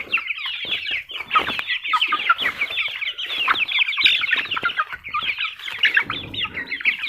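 A flock of young chickens peeping and cheeping together in a dense, continuous chorus of short, high, quick chirps, calling for food.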